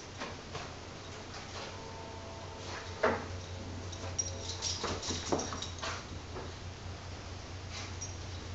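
Boston Terrier puppy whining thinly while it plays with a plush Garfield toy. A sharp knock comes about three seconds in, and a few light knocks and high clinks follow in the middle.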